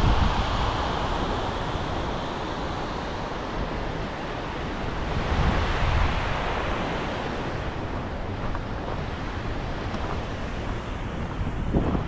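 Steady rush of water from the Skógá river's cascades, with wind buffeting the microphone in gusts, strongest about five seconds in.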